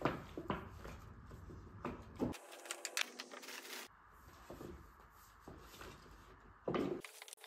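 Plastic bags and paper gift bags rustling and crinkling as small gifts are handled, with scattered sharp clicks and rattles.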